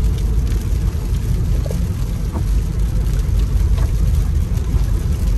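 Road noise inside a moving car on a wet road in the rain: a steady low rumble of tyres and engine with a hiss over it.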